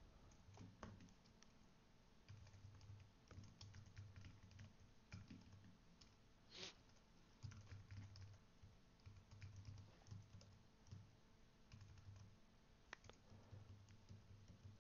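Faint typing on a computer keyboard: irregular keystroke clicks, a couple of them louder than the rest.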